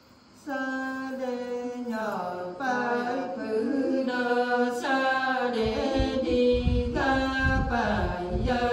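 Women's voices singing a Nùng folk song unaccompanied, starting about half a second in with long held notes that slide slowly between pitches. A low rumble runs under the singing in the second half.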